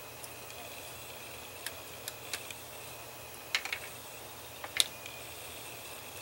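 Flush side cutters snipping white plastic plugs off their sprue: a handful of short, sharp plastic clicks at uneven intervals, the loudest about three-quarters of the way through.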